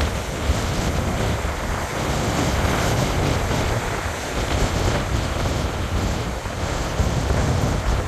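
Heavy storm surf breaking on a beach in a gale, a continuous loud wash of noise, with strong wind buffeting the microphone as a deep rumble.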